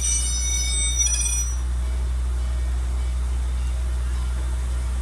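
Standing Norfolk & Western J-class steam locomotive 611 with a steady low rumble, and a high-pitched hiss of several tones that stops about a second and a half in.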